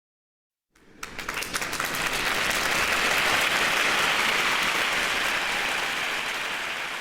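Applause, starting about a second in with a few separate claps that quickly build into steady clapping from many hands.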